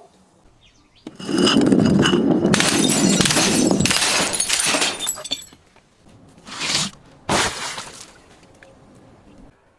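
Glass bottle breaking: a long crashing, shattering run of about four seconds, then two shorter crunches of glass a little later.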